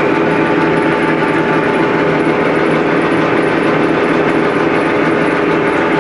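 Blanchard 20K-36 rotary surface grinder running under power: a steady mechanical hum with several held tones.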